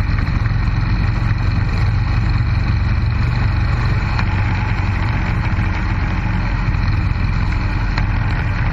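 Motorcycle engine running steadily at highway cruising speed, with wind rush and road noise.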